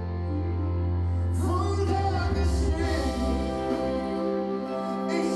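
Music with long held notes over a steady low bass; singing comes in about a second and a half in.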